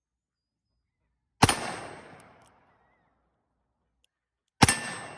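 Two shots from a Taurus Tracker .357 revolver, about three seconds apart, each a sharp crack followed by a tail that dies away over about a second.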